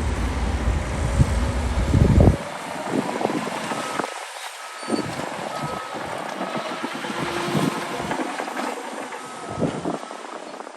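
Heavy earthmoving machinery running, with low rumble and wind on the microphone strongest for the first two seconds. From about four seconds in, a reverse alarm beeps steadily, about three beeps every two seconds.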